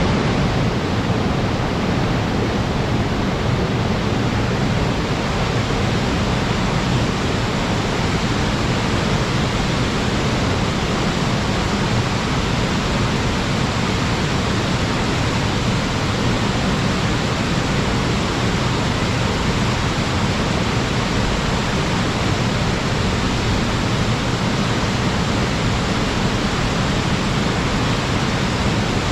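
Waterfall in spate after a typhoon, water pouring and churning in a loud, steady rush.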